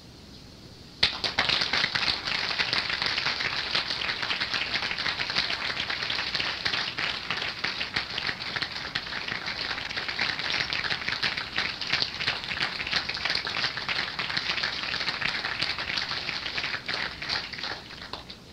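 Audience applauding, starting suddenly about a second in as a dense patter of many claps and easing off near the end.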